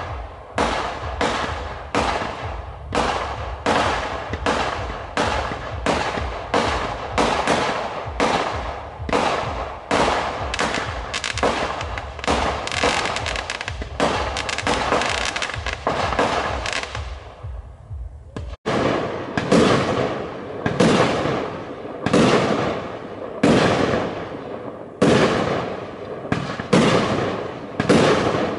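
Fireworks display: aerial shells bursting in a rapid series of bangs, about two a second, with a stretch of dense crackling a little before halfway. The sound cuts out abruptly for a moment a little past halfway, then the bangs resume.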